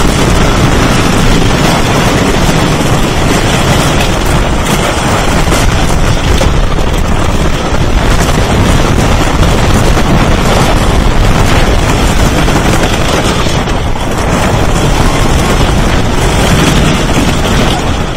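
Wooden roller coaster train running fast over the track, a loud, steady rattling rumble of wheels on the wooden structure, mixed with heavy wind buffeting the rider's microphone.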